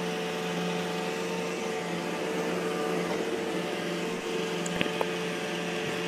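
Roomba i4 robot vacuum running with a steady hum from its vacuum motor and brushes, while it is still cleaning. A couple of light clicks come about five seconds in.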